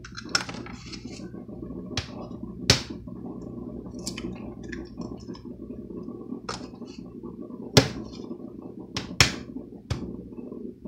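Raw eggs being cracked open into a bowl: about half a dozen sharp taps of eggshell against a hard edge, some coming in quick pairs. A steady low hum runs underneath.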